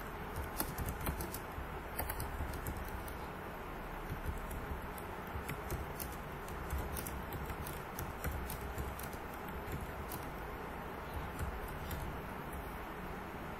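Computer keyboard being typed on: irregular key clicks coming in quick runs with short pauses, over a steady background hiss and low hum.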